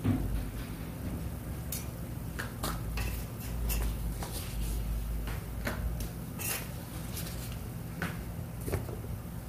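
Metal utensils clinking and knocking against a flat steel griddle, several separate clacks a second or so apart, as cooked hotteok are lifted off and put into paper cups, over a steady low hum.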